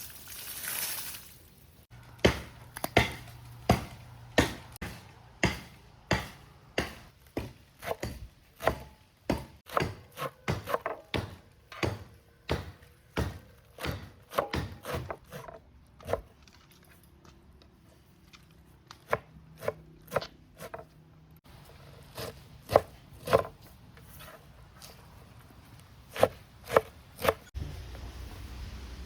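Knife chopping on a cutting board: a steady run of sharp strokes at about two a second for some fourteen seconds, then a short pause and a few scattered strokes.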